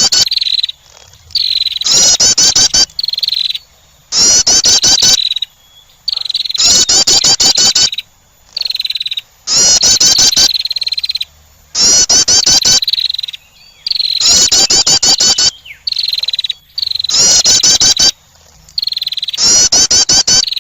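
A female wren's call, played as a lure to attract birds: a loud phrase of a buzzy trill and rapid high notes, repeated the same way about every two and a half seconds.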